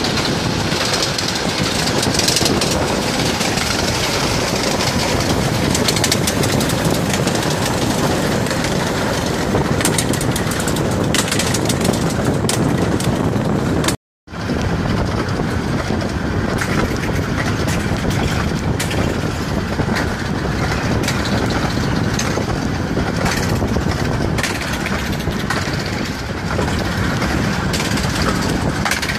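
15-inch-gauge steam train running at speed: dense wheel-on-rail clatter and rushing air from an open carriage window, while steam locomotives run on the parallel track. The sound cuts out briefly about halfway through.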